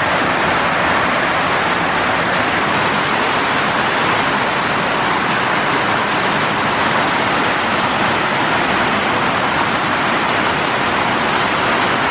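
Heavy rain pouring down steadily, heard from under a corrugated iron shed roof.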